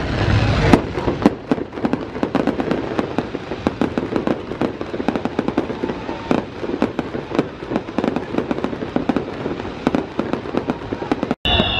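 Fireworks display: a dense, continuous crackle of popping shells and sparking fountains, with sharper bangs standing out about a second in. The sound cuts out for an instant near the end.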